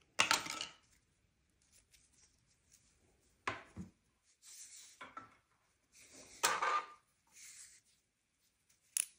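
Hands handling a nylon-braided USB cable: a few scattered rubs and light knocks, with one sharp click near the end.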